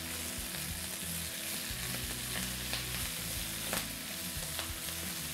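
Lacinato kale frying in olive oil in a hot nonstick pan: a steady sizzle as it is stirred with a wooden spatula, with a few light ticks of the spatula against the pan.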